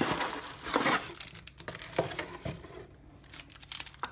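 Plastic bag of dishwasher tablets crinkling as it is opened and handled to take a tablet out. The crackling is thickest in the first second, then comes in a few scattered bursts.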